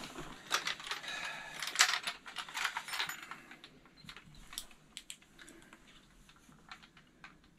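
Light metallic rattling and clicking of small gear being handled, busy for the first three seconds and then thinning to scattered ticks.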